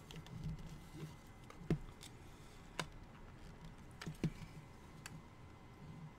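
Hard plastic parts of a small toy gumball machine clicking and knocking as it is handled and pried at while someone tries to open it: four or five sharp clicks over soft handling noise.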